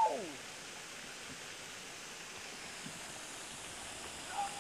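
A man's cry sliding down in pitch at the start, then a steady, even rush of running water.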